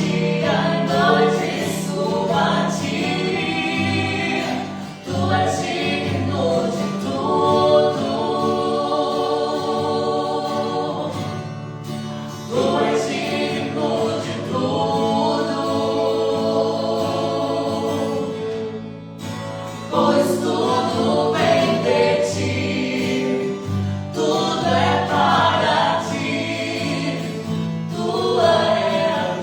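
Gospel worship music: a group of voices singing in sustained phrases over a steady instrumental accompaniment, with brief breaks between phrases.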